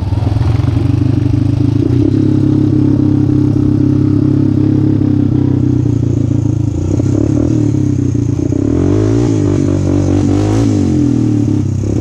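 Honda Recon 250 utility ATV engine running under steady throttle. From about seven seconds in the revs fall, then rise and fall several times.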